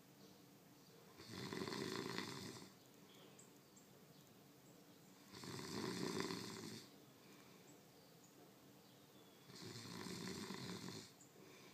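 A sleeping person snoring loudly: three long snores, each about a second and a half, coming about every four seconds with quiet breathing gaps between.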